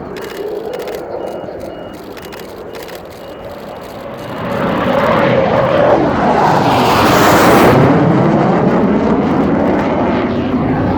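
Panavia Tornado GR4 jet flying past, its twin RB199 turbofan engines growing sharply louder about four and a half seconds in. The sound peaks with a loud hiss a few seconds later and stays loud, its pitch sweeping downward as the jet passes.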